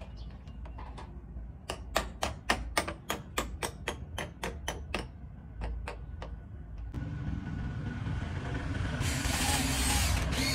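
A quick run of hammer blows, about four a second for some three seconds, then a few lighter knocks. Near the end a steady rushing noise builds up and grows louder.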